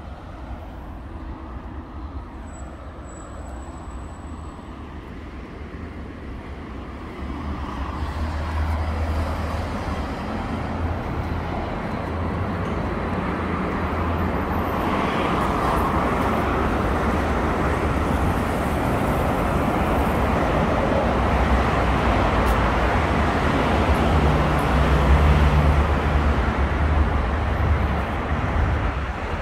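Road traffic noise of a city street: a steady rush of passing cars, faint and distant at first, growing louder about a quarter of the way in and louder again from about halfway as the street is reached.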